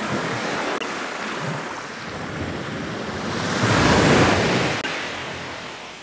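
Ocean waves breaking on a shore, with one wave building to its loudest about four seconds in and then washing back.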